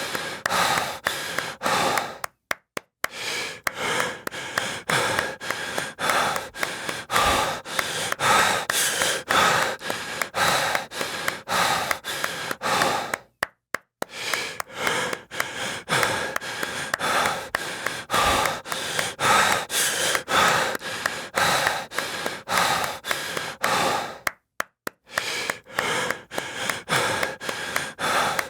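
Heavy breathing and gasping with steady, rhythmic claps, about two claps a second. The sound cuts out completely for about half a second three times.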